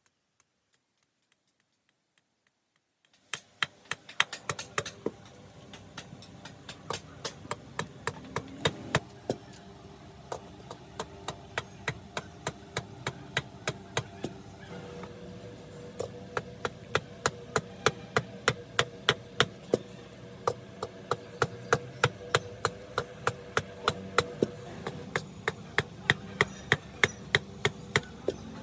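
Repeated sharp knocks of a hand tool striking wood, about two to three a second in an even rhythm, starting about three seconds in over a steady low hum.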